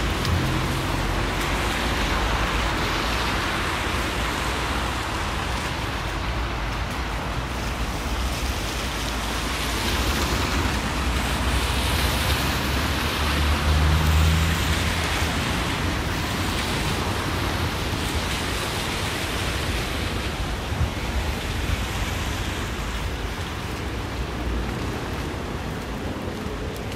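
Steady hiss of sleet falling on a wet city street mixed with tyres swishing on wet pavement. A car drives close by about halfway through, adding a brief low engine rumble.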